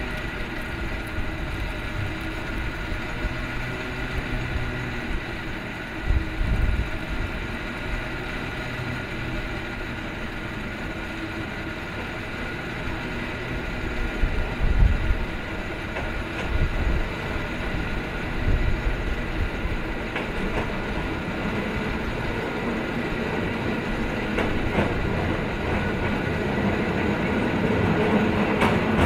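Cable car rolling along its street track, over the steady hum of the cable running in the slot beneath the street. A few low thumps come and go, and the sound grows louder near the end as the car comes close.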